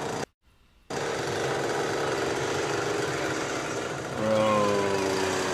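Busy street noise with a steady, rattling machine sound. It cuts out for about half a second near the start. A little past four seconds in, a held tone starts and slides slightly down.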